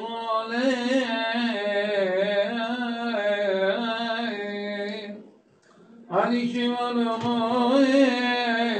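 A man's voice chanting the Syriac Orthodox liturgy: one melodic line that moves up and down, which breaks off for about a second midway and then goes on.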